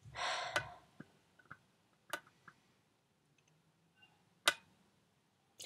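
A short breathy exhale, then a few faint, sharp clicks spaced out over the next few seconds, the loudest about four and a half seconds in.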